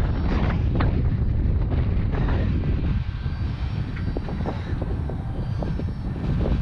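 Strong wind buffeting the microphone: a heavy, unsteady low rumble, with a few light clicks and knocks scattered through it.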